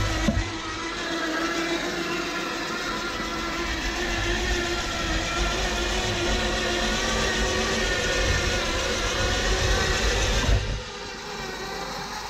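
Electric-converted MTD Yard Machines lawn tractor driving across grass: the steady whine of its 24-volt winch drive motor under speed-controller drive, wavering a little in pitch, over a low rumble. Near the end the sound drops and the rumble stops.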